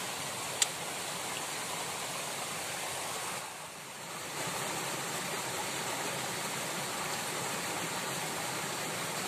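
Steady rush of water noise, with a small click under a second in and a brief dip in level about three and a half seconds in.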